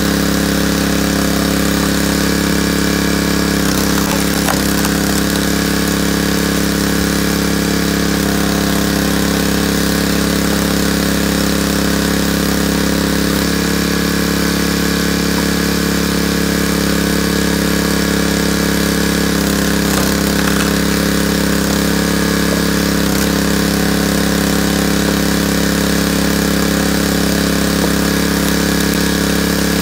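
Small gasoline engine of a hydraulic log splitter running steadily, its pitch sagging briefly a few times as the ram is pushed through logs.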